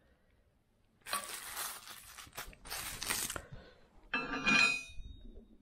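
Bubble wrap and plastic packaging crinkling and crackling for about two seconds as the parts are handled. About four seconds in comes a short ringing, pitched sound.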